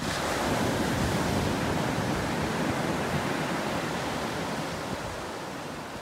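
Ocean surf: waves breaking and washing up the sand as a rushing hiss that starts suddenly and slowly fades.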